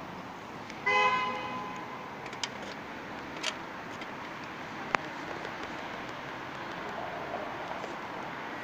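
A vehicle horn sounds once for about a second, about a second in, over the steady noise of city street traffic. A single sharp click comes near the middle.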